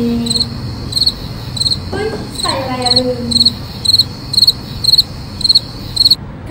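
Cricket chirping, a run of short high chirps about two a second that come closer together toward the end and stop abruptly. It is an edited-in sound effect. A woman's voice makes two brief drawn-out sounds under it, at the start and about two and a half seconds in.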